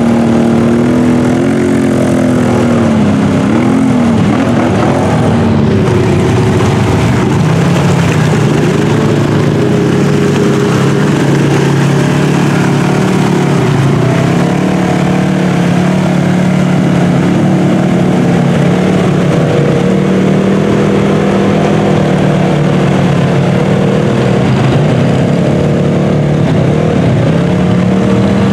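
ATV and lifted side-by-side engines revving through deep mud, the pitch climbing and dropping with the throttle in the first few seconds, then held high for long stretches as the machine pushes through.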